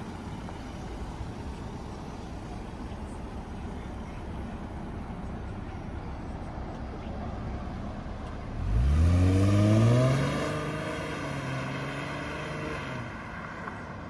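2007 Mercedes-Benz CLK350's 3.5-litre V6 pulling away under acceleration. After a low steady rumble, the engine note rises sharply about nine seconds in as the car speeds up, then holds steady and fades as it drives off.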